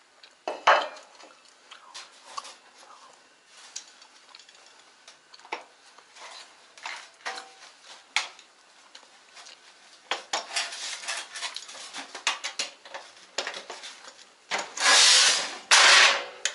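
Washing-machine parts being handled: scattered clicks, knocks and scrapes of metal and plastic pieces, busier in the later part, then two loud rubbing or scraping noises about a second each near the end.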